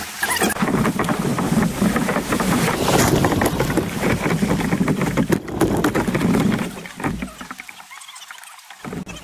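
Water splashing and rushing around a paddled tandem kayak running through shallow riffles, a steady dense rush with quick small splashes. It drops quieter for about two seconds near the end.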